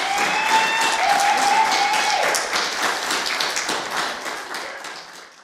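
Audience applauding after a song, with one person holding a long cheer through the first two seconds; the clapping fades away toward the end.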